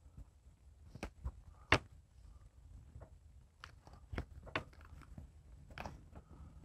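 Faint, scattered clicks and crinkles of clear fabric repair tape being pressed and smoothed onto the edge of an RV awning's fabric. The loudest click comes a little under two seconds in.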